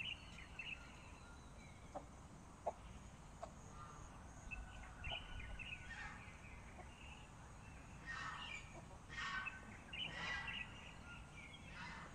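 Hens clucking and chirping: scattered short calls, with a run of louder clucks about eight to ten and a half seconds in, and a few sharp clicks early on.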